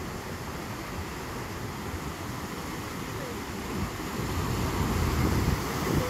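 Ocean surf breaking and washing over rocks along a rocky shore, swelling louder in the second half, with wind buffeting the microphone.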